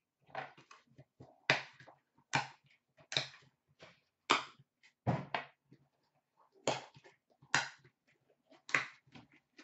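Handling noises from boxes of Upper Deck The Cup hockey cards being moved and opened: about a dozen short, irregular knocks and rustles with gaps between them.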